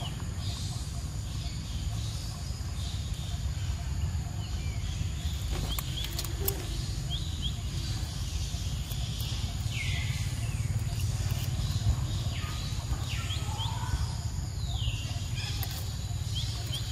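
Outdoor ambience: a steady low rumble with scattered short, high, downward-sliding chirping calls and a few light clicks.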